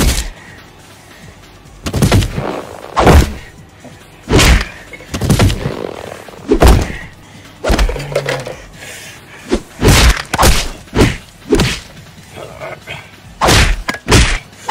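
Cartoon-style punch and hit sound effects for a fight: about a dozen heavy thuds spread irregularly, some in quick pairs, over background music.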